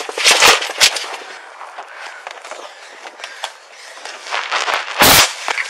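A few sharp knocks, then lighter rustling and clatter, with one loud thump about five seconds in.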